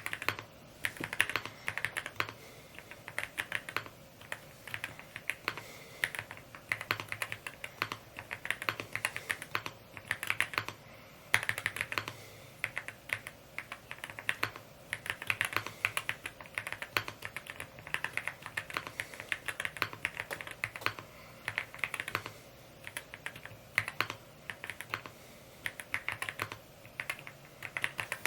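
Typing on a Rainy75 mechanical keyboard: fast runs of keystrokes in bursts of a second or two, separated by brief pauses.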